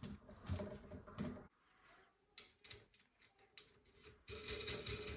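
Faint handling noises of a metal cymbal stand's parts being fitted by hand: a few scattered light clicks, then a longer rubbing sound of about a second near the end.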